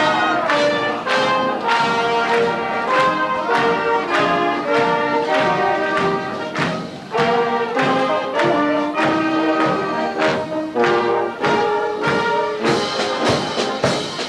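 Brass band playing a lively tune over a steady beat.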